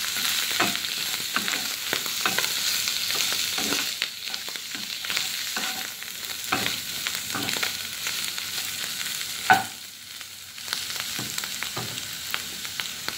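Chicken tenders and sliced vegetables sizzling in a wok while a spatula stirs and tosses them, scraping and clacking against the pan many times. A louder knock about nine and a half seconds in, after which the sizzle briefly drops.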